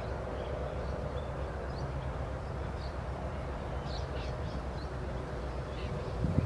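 Steady low drone of a distant diesel locomotive engine, with small birds chirping now and then.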